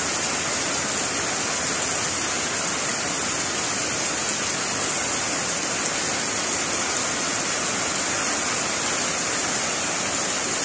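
Heavy rain pouring down onto a pond and the ground around it, a steady, dense hiss.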